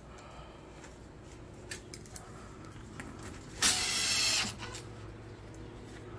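A couple of light clicks, then a loud scuffing rustle lasting just under a second as the phone's microphone rubs against a cotton shirt, over a faint steady low hum.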